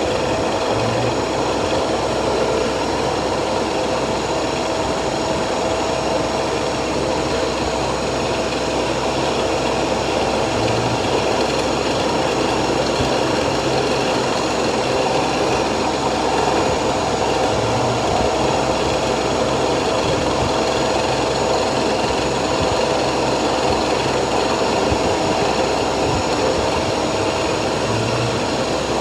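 CNC milling machine making a finishing cut with a 16 mm tool holder: steady spindle and cutting noise with a constant whine. A low hum swells briefly a few times.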